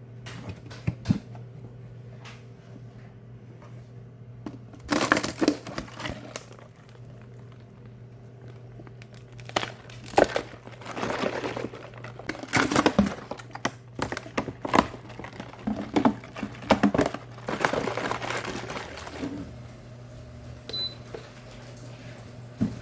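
Plastic crinkling and handling noises in irregular bursts, over a steady low hum.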